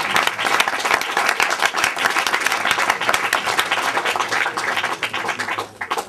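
Audience applauding, a dense patter of many hands clapping that dies away near the end.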